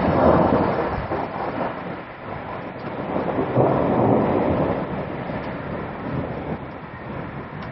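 A deep, rumbling noise with no clear pitch that swells at the start and again about four seconds in, then fades somewhat.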